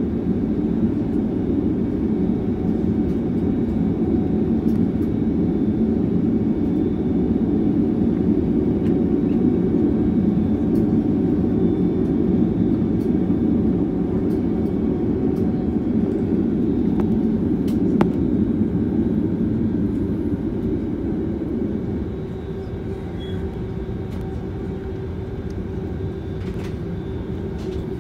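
Steady rumble of a jet airliner's engines heard from inside the passenger cabin as the plane taxis, easing a little about three-quarters of the way through.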